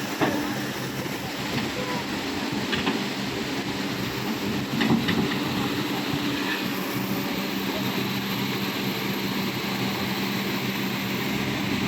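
Heavy excavator engine running steadily over the rush of floodwater pouring through a breached river dam, with a few sharp knocks about three and five seconds in.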